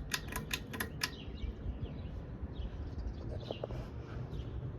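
Harbor Breeze Calera II ceiling fan running on high speed: a steady low whoosh of the motor and moving air. There is a quick run of sharp clicks in the first second, and faint bird chirps.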